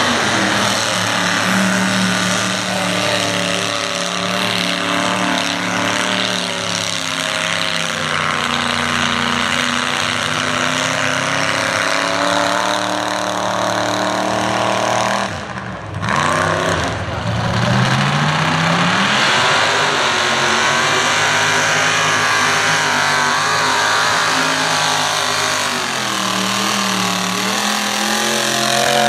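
Mud truck's engine running hard at high revs while churning through a mud pit, its pitch rising and falling with the throttle. About halfway through the sound briefly drops away, then the engine revs back up in a rising whine.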